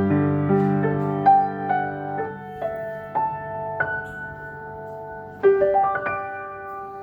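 Piano playing single melody notes at a slow pace over held bass notes, then a louder chord about five and a half seconds in that is left to ring and fade.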